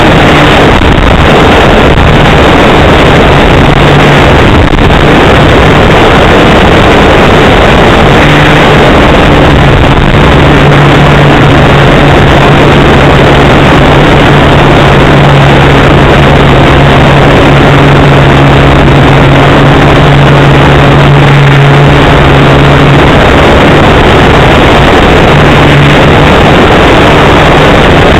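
Small engine of a radio-controlled model airplane running steadily in flight, heard through the onboard camera's microphone under heavy wind rush, loud enough to distort. The engine note is strongest through the middle and comes and goes toward the end.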